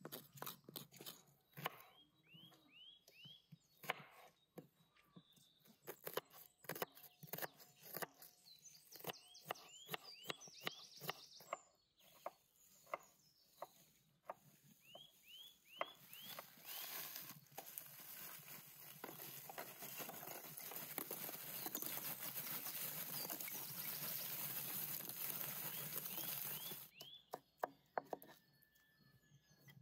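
Food-prep clicks and knocks of a spoon against a glass bowl and a knife on a wooden chopping board. A small bird sings several short runs of quick falling notes. About halfway through, a steady hiss sets in for roughly ten seconds.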